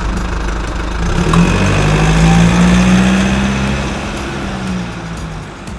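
Single-cylinder diesel engine of a two-wheel walking tractor running, speeding up about a second in, then slowing and getting quieter toward the end.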